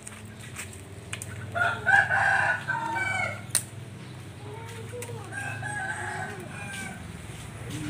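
Roosters crowing: one crow about a second and a half in, lasting nearly two seconds, and a fainter second crow around five seconds in, over a low steady hum. A single sharp click comes between them.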